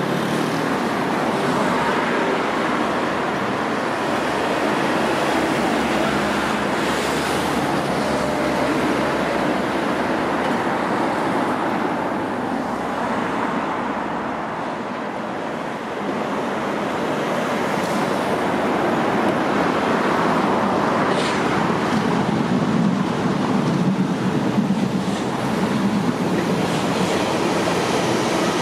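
Electric multiple-unit trains running on the tracks, a steady rumble and rush of wheels on rail. It grows louder in the second half as two trains come by close.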